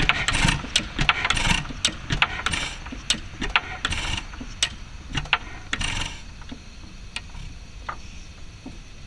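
4 hp York hit-and-miss gas engine slowing down: its puffs and the clicking of its valve gear come further and further apart and die away about six seconds in, leaving only a few faint ticks.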